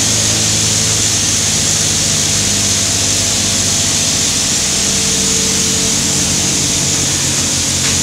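Drilling-rig floor machinery running: a loud, steady drone with a low hum and a strong high hiss.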